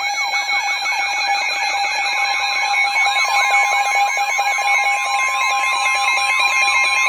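Weather radio alert for a severe thunderstorm warning: a loud electronic warble of quick rising-and-falling sweeps, about five a second, over steady tones. A further steady tone near 1 kHz joins about two seconds in, matching the weather radio warning alarm tone.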